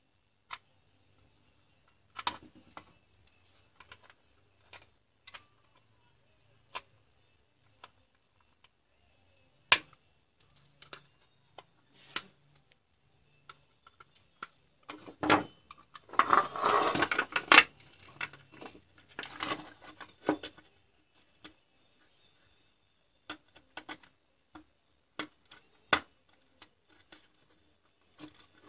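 Side cutters snipping and nipping at the hard plastic of a cordless drill battery pack shell: scattered sharp clicks and snaps, with plastic handling noise and a busier stretch of crunching and rubbing about halfway through.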